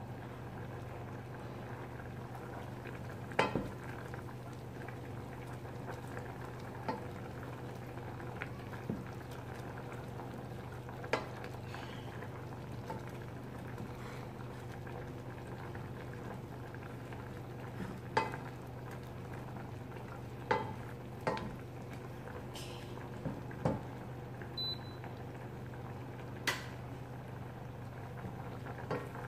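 Cream sauce bubbling in a stainless steel pot as it boils down to reduce, over a steady low hum. A wooden spoon stirring gives irregular sharp knocks against the pot, a dozen or so spread through.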